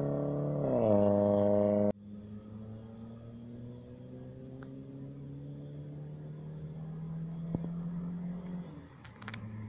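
Proton Satria Neo's Campro CPS four-cylinder engine through a custom exhaust. A loud engine note drops in pitch about a second in and cuts off abruptly about two seconds in; then a quieter engine note climbs slowly in pitch as the car accelerates toward the listener, easing off near the end.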